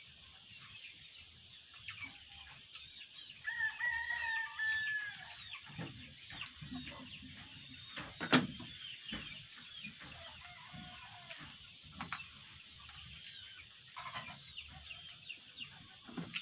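A rooster crows once, a call of about a second and a half starting about three and a half seconds in, over scattered high chirping from birds. A single sharp click about eight seconds in is the loudest sound.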